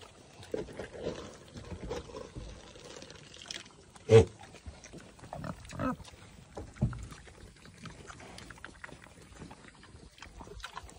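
Pigs grunting, a few short calls, with one much louder grunt about four seconds in.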